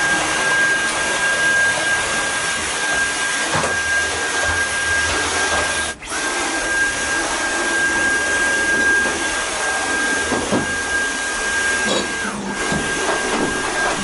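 Cordless stick vacuum cleaner running steadily while picking up cat hair from the floor: a constant rushing hiss with a high steady whine, briefly broken about six seconds in.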